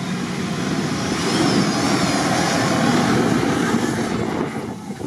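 An off-road SUV racing past at full throttle on a loose dirt track, its engine revving hard while the tyres spin and throw up dirt. It gets louder about a second in as it passes close, and drops off near the end.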